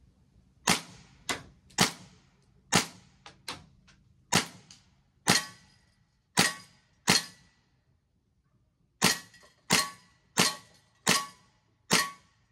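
A 4.5 mm CO2 BB air pistol (Beretta M92 replica) firing about a dozen sharp pops in quick succession, with a pause of about two seconds midway before five more shots.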